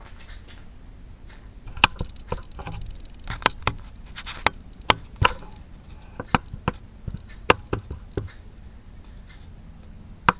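Irregular sharp clicks and light knocks from a PC case and its cables being handled and poked at, starting about two seconds in.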